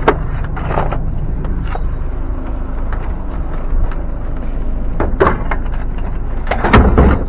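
A vehicle running with a steady low rumble, with a few sharp knocks and clunks, the loudest about six and a half to seven seconds in.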